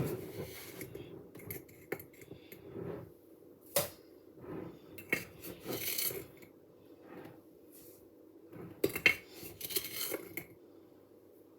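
Kitchen clatter: dishes, utensils and containers being handled, with irregular clinks and scraping and a few sharper knocks about four, five and nine seconds in.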